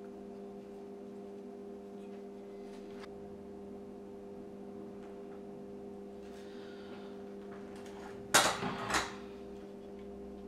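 Bench work with a steady electrical hum throughout, a little handling rustle and a few small clicks, and a brief clatter of hard objects knocking together a little after eight seconds in, the loudest sound.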